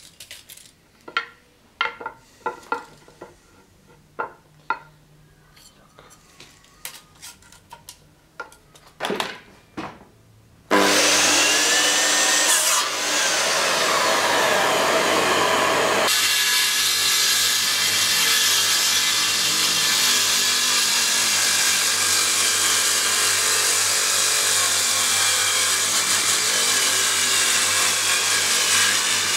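Scattered light taps and knocks of wood and a dagger being handled. About a third of the way in, a power saw starts suddenly and cuts through a wooden block, the sliding mitre saw's blade winding down a few seconds later, then a table saw runs steadily ripping thin strips from the block.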